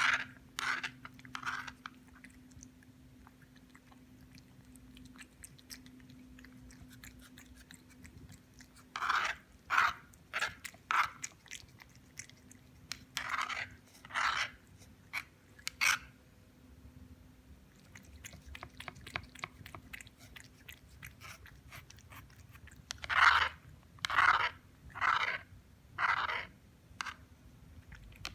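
Siamese cat chewing and crunching dry cat biscuits in three bouts of loud, sharp crunches, with softer chewing clicks in between.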